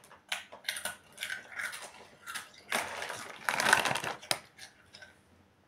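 Crunching of Takis rolled corn tortilla chips being chewed, in irregular bursts, with the chip bag rustling as it is handled.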